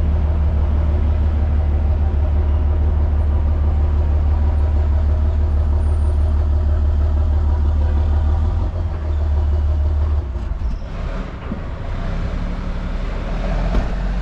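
Motor vehicle driving: a steady, loud low drone of engine and road noise that drops in level about ten seconds in.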